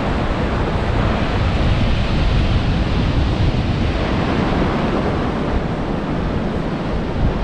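Sea surf breaking and washing over a stony, pebble-and-boulder shore in a steady rush, with wind buffeting the microphone.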